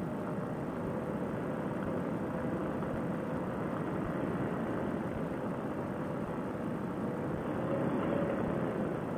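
Paramotor trike taxiing over grass with its Fresh Breeze Monster engine running low: a steady rush of wind and rolling noise with a faint engine hum that swells slightly about eight seconds in.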